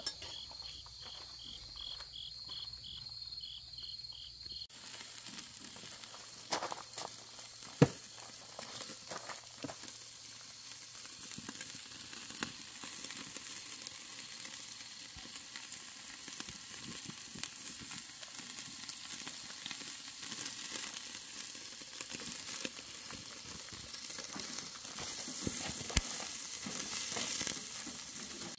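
Cross-cut beef short ribs sizzling on a wire grill over charcoal, a steady hiss with scattered sharp pops of fat, the loudest about eight seconds in. For the first few seconds, before the sizzling, insects chirp in quick, regular pulses.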